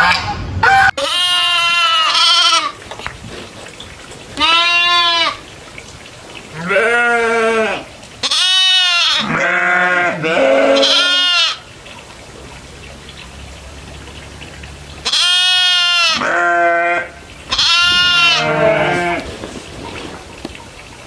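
Goats bleating, about ten calls of half a second to a second each, some higher and some lower in pitch, with pauses between groups of calls.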